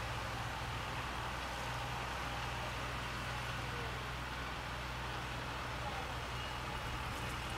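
New Holland T4 tractor's diesel engine running steadily with a low, even hum as the tractor works across the field pulling a boom sprayer.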